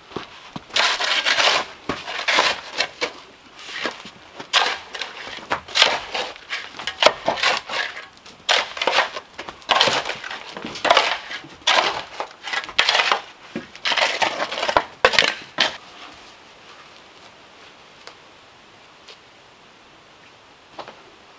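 A long-handled digging tool scraping and chopping into gritty dirt, in many irregular strokes that stop about two-thirds of the way through. A few faint knocks follow.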